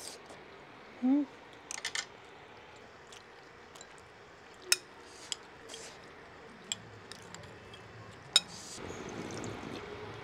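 Eating sounds: a metal spoon and chopsticks clicking several times against a ceramic bowl of hot pot, a brief hum about a second in, and near the end a long slurp of broth sipped from the bowl.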